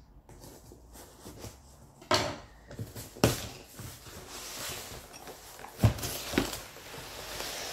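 Cardboard shipping box being opened by hand: a knife scratching through the packing tape, then cardboard rustling and scraping as the flaps are pulled open. Sharp knocks about two and three seconds in, and a loud thump near six seconds as the box is tipped up.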